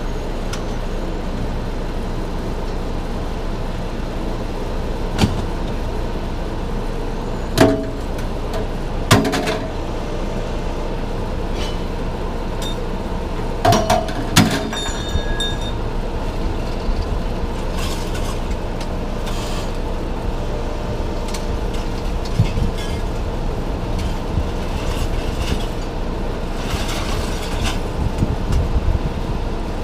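A vehicle engine idling steadily under several sharp metal clanks, typical of scrap metal being handled on a yard scale. The loudest clanks come in two pairs, one about eight seconds in and one about fourteen seconds in, and the last rings briefly.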